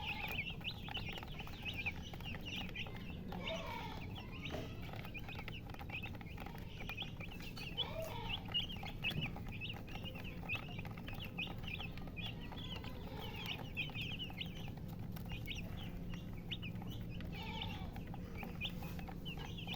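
Domestic chicks peeping in a steady stream of short, high chirps, with a few lower clucks from a hen now and then.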